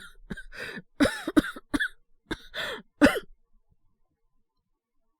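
A voice actor's coughing fit, acted for a character with a cold: about eight short, harsh coughs over roughly three seconds, caught between quick breaths. The coughs are put on deliberately, to make the listener worry.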